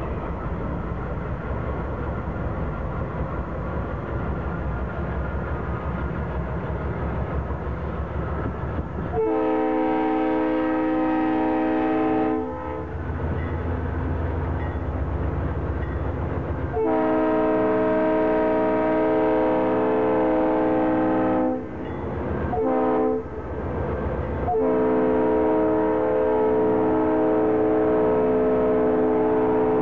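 A Norfolk Southern GE Dash 9-40CW diesel locomotive runs past close by, its engines rumbling, then sounds its multi-chime air horn. The horn gives two long blasts, a short one and a final long blast that is still sounding at the end. This is the standard long-long-short-long grade-crossing signal.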